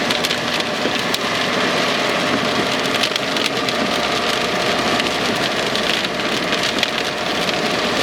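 Rain hitting a car's roof and windshield, heard from inside the vehicle as a steady hiss dense with small drop impacts, with road and engine noise underneath.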